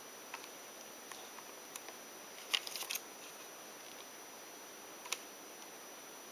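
Steady faint hiss of the recording's background noise with a few faint clicks and taps: a small cluster of them about two and a half to three seconds in, and one more near five seconds.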